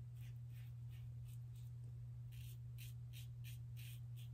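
Fatip il Piccolo Storto open-comb slant safety razor scraping through lathered stubble on the upper lip and chin in a run of short strokes, coming faster in the second half. A steady low hum runs underneath.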